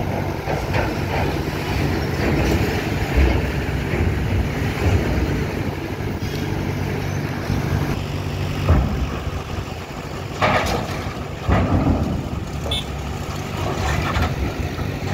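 Heavy diesel engines of a bus and a box truck running at low speed as they drive off a ferry, with several sharp clanks and thuds scattered through.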